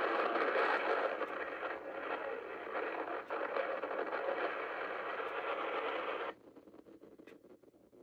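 Radio-style static hiss with a narrow, old-broadcast sound, part of a mock emergency alert broadcast. It cuts off suddenly about six seconds in, leaving faint room noise.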